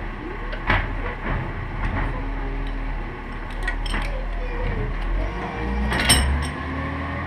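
Metal clinks and knocks of tools and wheel parts being handled during a motorcycle front-wheel change, a few scattered clicks with one sharper clank about six seconds in, over a low steady hum.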